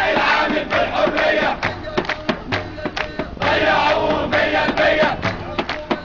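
A crowd of men chanting protest slogans in Arabic in unison, over rhythmic hand clapping and the beat of a hand drum. The shouted chant comes in two bursts, at the start and again just past halfway, with the clapped beat running on between them.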